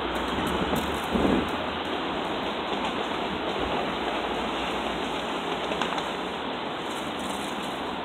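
Strong gusty wind blowing over a phone's microphone: a steady rushing noise, with a brief louder gust about a second in.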